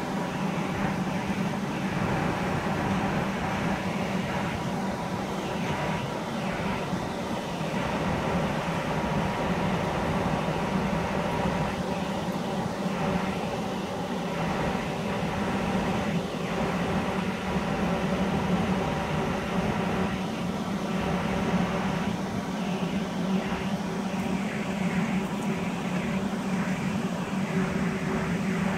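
Automated facade-cleaning machine running: a steady low mechanical hum with several steady higher tones, unchanging in level.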